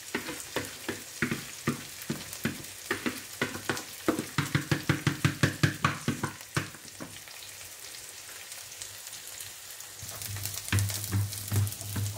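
Sliced onions sizzling in oil in a non-stick frying pan, stirred with a spatula in quick scraping strokes, fastest and loudest about four to six seconds in. The stirring eases off for a few seconds, then picks up again near the end with almonds in the pan.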